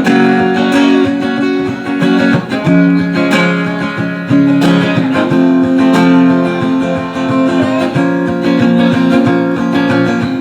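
Acoustic guitar strumming chords in an instrumental passage between sung lines of a slow ballad.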